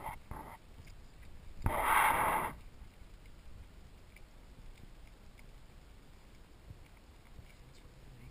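A mother dog shifting about in a whelping bed with her newborn puppies: low rustling and scraping, two brief sounds right at the start, and one short, louder noisy burst about two seconds in.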